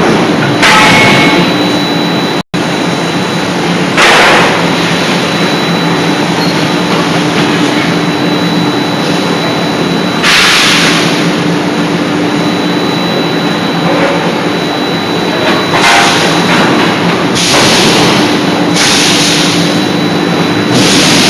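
Hydraulic die-forging hammer at work: a steady hum of machinery with loud, noisy bursts, each lasting under a second, recurring several times at uneven intervals. The sound cuts out for a moment near the start.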